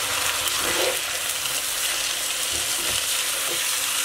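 Mutton pieces sizzling in hot ghee and oil with browned onions in a pot, a steady frying hiss. Near the end the meat is stirred with a wooden spatula, with a few soft knocks.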